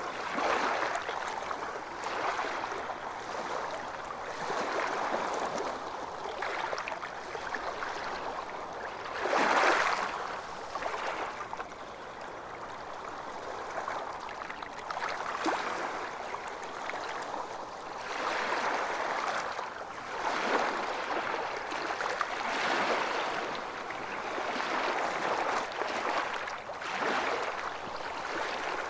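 Calm water lapping and sloshing in small waves, swelling and easing every few seconds, with one louder slosh about ten seconds in.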